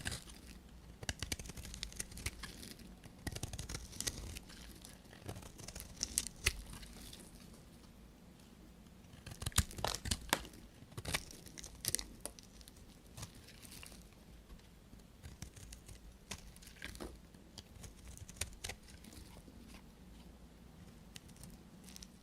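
Knife cutting through dry bar soap: crisp crunching and crackling in irregular bursts, the loudest cluster about halfway through.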